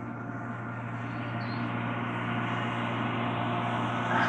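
Farm tractor with a tank sprayer running across a field, a steady engine hum that grows gradually louder.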